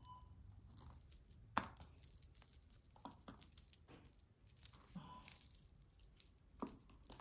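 Faint, scattered clicks and clinks of metal costume jewelry as tangled chains and earrings are worked apart by hand, with one sharper click about one and a half seconds in.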